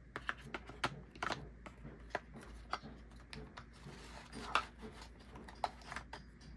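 Irregular clicks, taps and light knocks of hands handling small plastic GoPro mounts among the dividers of a zippered accessory case, with a brief rubbing sound near the middle.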